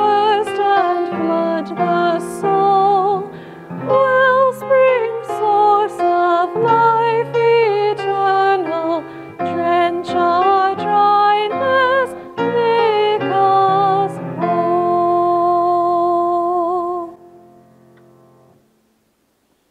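A woman singing a solo with grand piano accompaniment, her voice with a light vibrato. The song ends on a long held note that dies away about three-quarters of the way through, followed by near silence.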